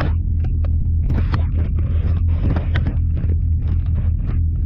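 A vehicle engine running steadily with a low drone, overlaid by frequent sharp knocks and rattles.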